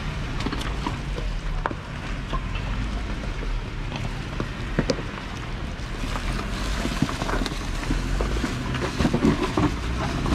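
Jeep Wrangler Rubicon's engine running at low revs as it crawls over a rocky trail, with scattered sharp clicks and knocks of its tyres rolling over rocks and stones.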